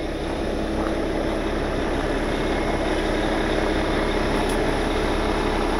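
Heavy wrecker's diesel engine running steadily at idle, with the PTO engaged to drive the hydraulics.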